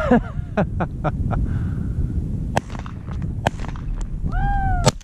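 Sandhill cranes calling in flight: a cluster of short arched calls at the start and one longer arched call near the end, over low wind rumble on the microphone, with a few sharp clicks between.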